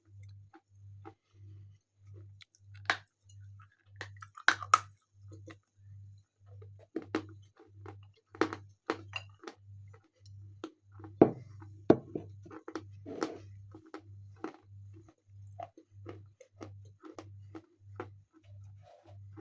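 Close-up crunching and chewing of pieces of edible chalk: irregular crisp crunches as chunks are bitten, the loudest a little past the middle, with quieter chewing between. A faint low hum pulses about twice a second underneath.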